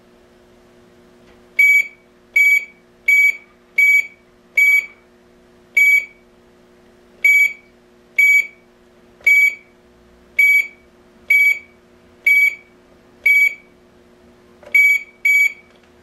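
Keypad of an AAS GSM cellular alarm control panel beeping once for each button press: about fifteen short, high beeps at uneven intervals as a code is keyed in. A faint steady hum runs underneath.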